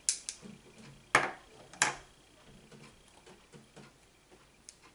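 A few sharp clicks and taps of small hard objects being handled, the loudest about a second in and again near two seconds, with faint ticks in between.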